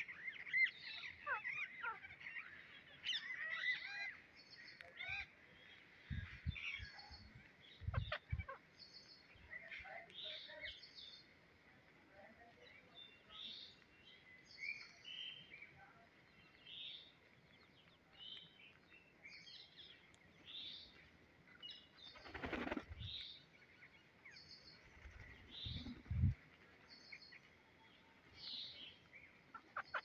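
Flock of rose-ringed parakeets feeding on grain, giving scattered short chirps and squawks. The calling is busiest in the first few seconds, with a few soft low thumps later on.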